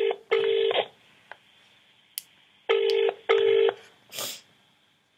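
British-style telephone ringing tone heard down a phone line: two double "brr-brr" rings a little under three seconds apart, with a faint click between them and a short rustle after the second ring.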